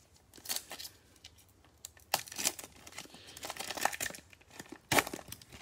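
A glossy black foil trading-card pack (Panini Mosaic bonus pack) crinkling in gloved hands as it is torn open, in irregular crackly bursts with the sharpest, loudest one about five seconds in.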